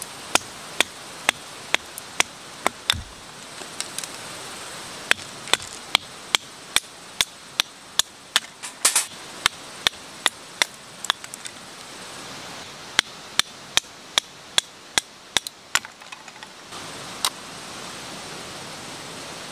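Hammer strikes driving tent pegs into the ground, sharp and ringing, about two a second in several runs with short pauses between, and a last single strike near the end.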